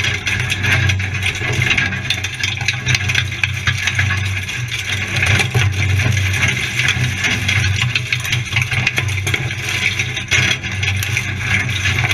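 Off-road 4x4's engine running steadily at low speed while driving a rutted, muddy lane, with frequent knocks and rattles from the rough ground.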